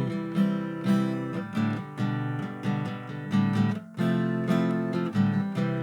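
Acoustic guitar strumming chords in a steady rhythm, with a brief break about four seconds in.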